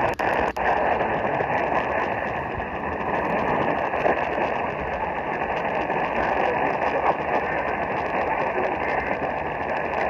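Radio static: a steady hiss from a receiver with no intelligible audio, cutting out briefly twice right at the start.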